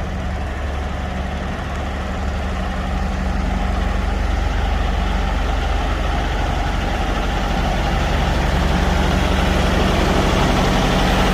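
Heavy diesel semi-truck engine idling steadily, slowly growing louder.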